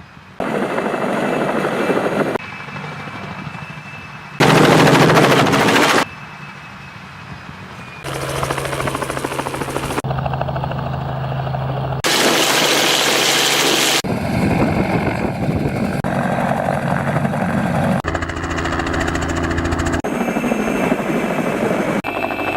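Helicopter rotor and engine sound in a series of short clips cut together, changing abruptly in loudness and tone every couple of seconds. The loudest clip comes about four to six seconds in.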